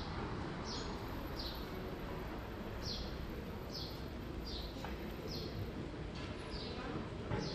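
Street ambience in a narrow city street, with a short high chirp, falling slightly in pitch, repeating about once every three-quarters of a second.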